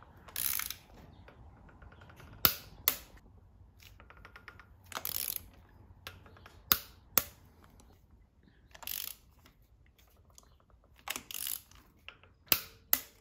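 Ratchet wrench with a socket extension fitting spark plugs into the cylinder head. It gives short spells of ratchet clicking and several sharp metal clicks, some in close pairs.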